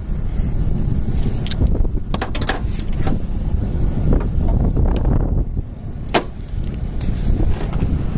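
Several sharp, irregular metal clinks as the socket on a half-inch click torque wrench is fitted onto an engine-mount bolt, over a steady low rumble.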